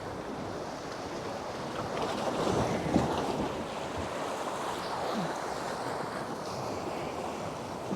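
Gulf surf washing ashore with wind buffeting the microphone, swelling louder about two to three seconds in.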